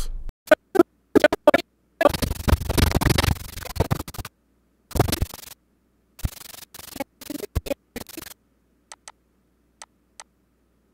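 A heavily processed, noise-gated audio recording being played back: irregular bursts of scratchy noise and crackle broken by sudden dead silences, thinning after about eight seconds to a few faint clicks.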